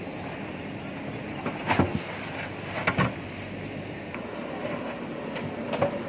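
JCB backhoe loader's diesel engine running steadily as the digging arm works, with sharp knocks and clunks from the bucket and arm in quick pairs about two and three seconds in and again near the end.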